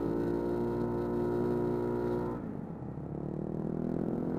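Bored-up Yamaha NMAX scooter's single-cylinder engine running under throttle, then easing off a little over two seconds in, its pitch falling, before picking up and rising again near the end.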